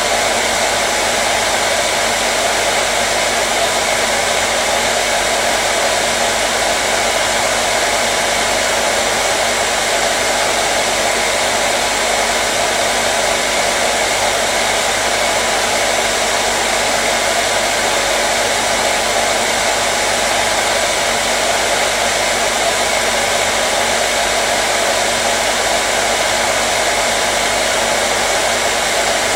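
Hair dryer running steadily at constant speed, a continuous airy whoosh with a faint motor hum.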